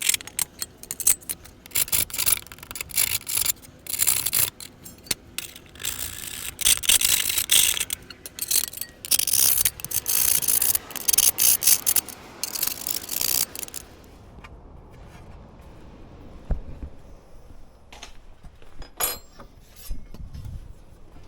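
Hand file rasping back and forth on the freshly cut notch in the heater mounting turret, opening it up for the fuel pump wires. The strokes are quick and uneven for about fourteen seconds, then stop, leaving only a few light knocks.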